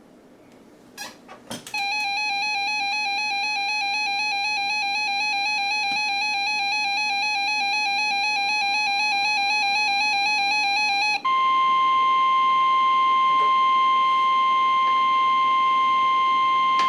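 Emergency alert attention signal. After a few short data blips, a harsh two-tone alarm sounds for about nine seconds, then switches abruptly to a steady single-tone weather radio alert tone. It marks the start of a new severe weather warning broadcast.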